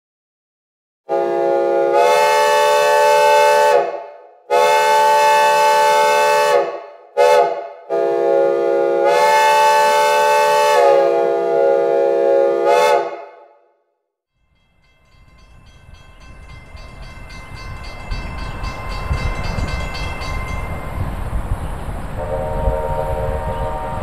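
Synthesized recreation of a Reading T-1 steam locomotive's six-chime whistle, sounding a chord in four blasts (long, long, short, long), the grade-crossing signal, with reverb trailing each blast. A few seconds later an approaching train's rumble swells, and the chime whistle sounds again near the end.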